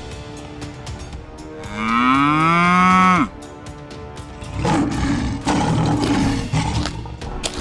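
A cow mooing once, a long call that rises in pitch and drops off sharply at the end, over background music. A rougher, noisier sound follows a little later.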